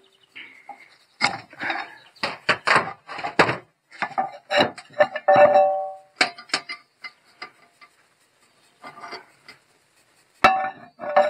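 Steel disc wheel being handled and fitted on its axle: irregular metal knocks and clanks, with a short metallic ring about halfway through and two sharper knocks near the end.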